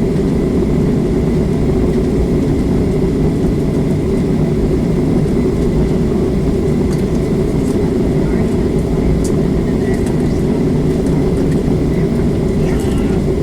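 Steady low rumble of a Boeing 737's jet engines heard from inside the passenger cabin, holding an even level.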